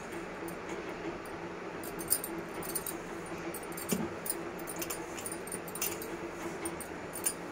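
Hands rubbing and squeezing maida flour with ghee and curd in a stainless steel bowl: a steady rustle and scrape, with light clinking from the bangles on the kneading wrist scattered throughout.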